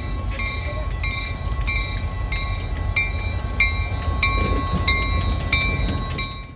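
Diesel freight locomotives running with a low engine rumble while a bell rings in a steady repeating rhythm. The sound drops away suddenly near the end.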